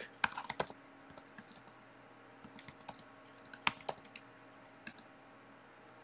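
Faint, irregular keystrokes on a computer keyboard: a quick run of clicks at the start, then scattered taps with pauses between.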